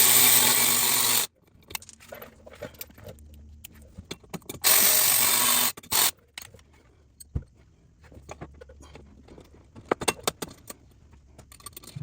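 A cordless power drill running in short bursts while the mud flap's mounting hardware goes in. One run cuts off about a second in, another lasts about a second near the middle with a short blip after it, and in between come small clicks and taps of hardware being handled.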